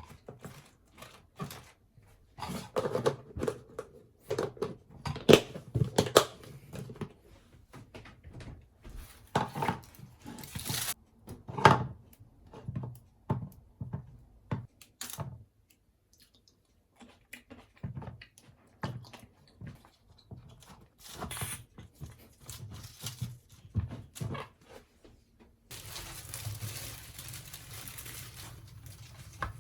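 Irregular knocks, clicks and rustling from objects being handled, some of them sharp, with a brief lull partway through. About four seconds before the end a steady hiss starts and holds.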